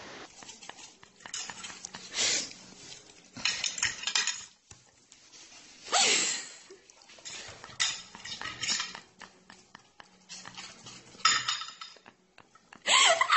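Knife and fork clinking and scraping against a plate as food is cut, in short irregular bursts.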